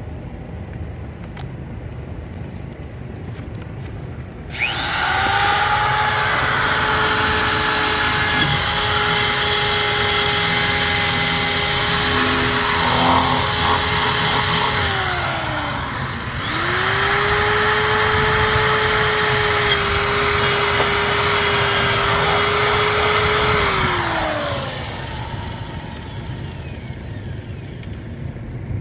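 Electric drill running in two long runs, its motor whine holding a steady pitch and then falling away as it winds down each time. It is being used to cut small slots where a part meets its bolts.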